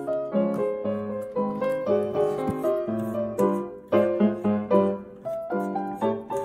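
Ragtime piano music playing with a lively run of struck notes.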